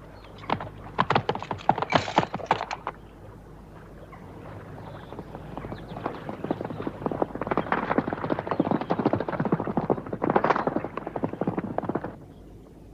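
Hoofbeats of a ridden horse moving fast: a dense run of beats for about the first three seconds, then again from about six seconds, louder near the end and cutting off suddenly.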